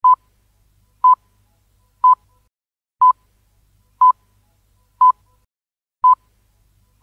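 Seven short electronic beeps, one each second, all on the same pitch.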